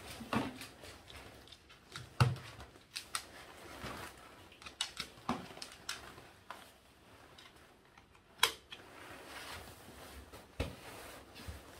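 A dog's harness and lead being handled and put on: scattered light clicks and rustling, with two sharper knocks about two seconds in and again about eight and a half seconds in, while the dog shifts about on the hard floor.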